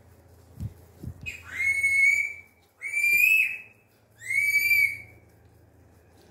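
Three loud, high whistle-like calls, each just under a second long and evenly spaced, the first about a second and a half in. A couple of soft low knocks come before them.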